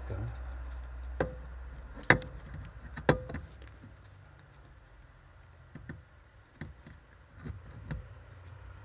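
A series of sharp knocks and clicks: three loud ones about a second apart, then four or five fainter ones, over a steady low hum.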